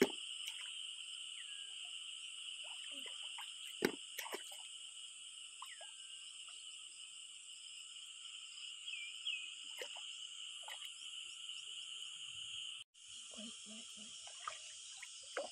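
Steady, high-pitched chorus of calling animals, with a few light water splashes and a sharp tap about four seconds in; the chorus briefly cuts out near the end.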